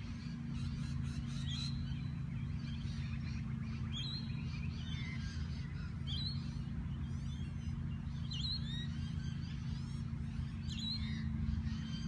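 Several birds chirping and calling in short, sweeping notes over a steady low hum.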